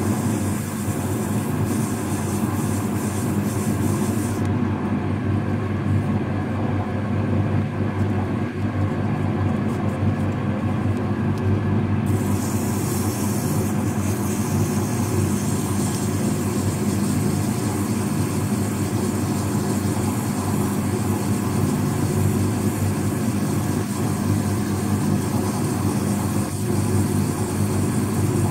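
Metal lathe running steadily with an alternator rotor spinning in the chuck, while a strip of abrasive cloth is held against its copper slip rings to polish off rough scoring. A steady low hum with a high hiss on top; the hiss thins out for several seconds about a fifth of the way in, then returns.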